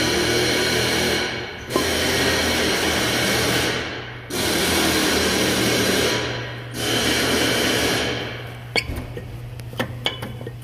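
A shop power tool running in about four bursts of roughly two seconds each with short pauses between. It stops about eight seconds in, followed by light metallic clicks and clinks over a steady low hum.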